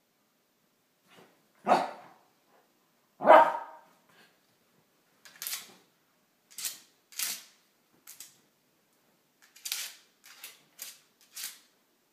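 Wire-haired fox terrier giving two sharp play barks about a second and a half apart, then a string of short, quieter hissy sounds.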